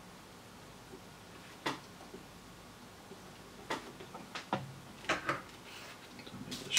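A handful of sharp clicks and taps, the first few spread one to two seconds apart and then bunching up near the end. They come from a soldering iron being moved away and a small circuit board being pulled from the crocodile clips of a helping-hands clamp.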